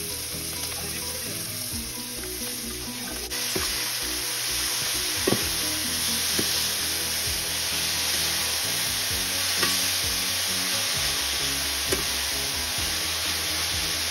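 Chopped amaranth greens sizzling in hot oil in a stainless steel pan while being stirred with a metal spatula. The sizzle grows louder about three seconds in, and the spatula clinks sharply against the pan a few times.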